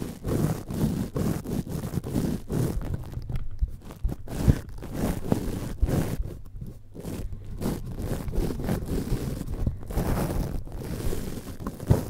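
A microphone's mesh grille being scratched and scraped close up with a thin stick and the fingertips, in quick irregular strokes with small clicks and rustles.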